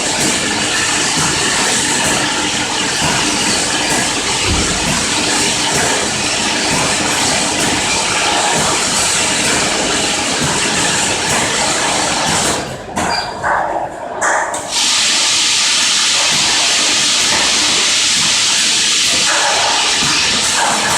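Piston pump filling and capping machine running: a loud, steady hissing machine noise that drops away briefly about thirteen seconds in, then resumes.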